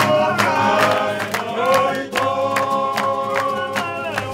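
A group of voices singing together over strummed acoustic guitars, with a steady strumming rhythm.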